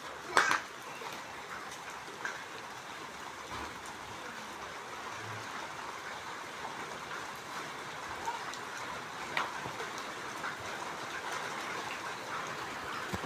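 Steady rain falling, an even hiss, with a sharp knock or splash about half a second in and a few fainter ticks of drops.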